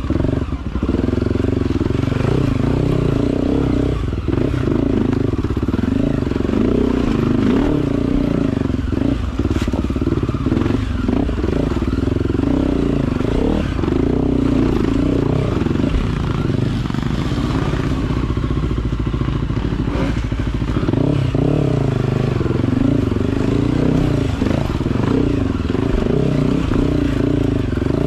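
Off-road trail motorcycle engine revving up and down again and again as the bike is ridden, with some clatter.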